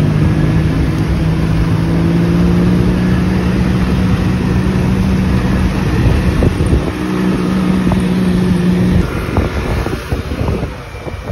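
Motorcycle engine running under way, its note rising slowly, breaking briefly about six seconds in and dropping away about nine seconds in, with a constant rush of wind and road noise over it.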